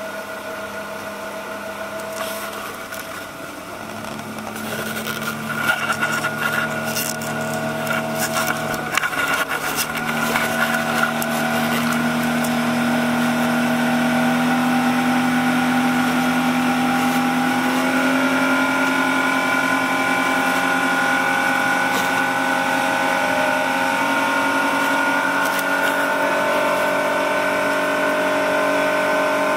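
Suzuki 300 hp outboard motor driving a small ferry boat, speeding up with rising pitch over the first ten seconds or so, then running steadily at cruising speed. Bursts of water and hull noise come in while it speeds up.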